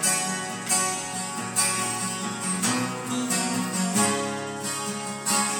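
Two acoustic guitars strummed together in a steady rhythm, an instrumental passage between verses of a slow song, with a strong strum a little under once a second.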